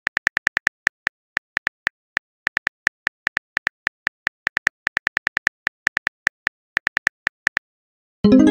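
Phone keyboard typing clicks: a fast, uneven run of short sharp taps. Near the end comes a louder chime with several ringing tones that dies away over about a second, a text message alert.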